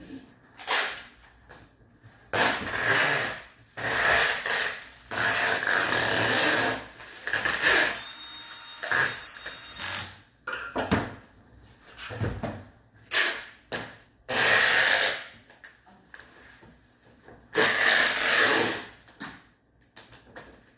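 A small power tool running in repeated bursts of about one to three seconds, stopping and starting about eight times.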